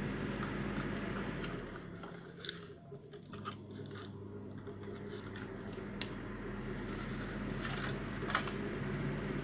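Scattered small clicks and taps of hard plastic parts and a screwdriver being handled as a hand mixer's plastic housing is worked on, over a steady low hum.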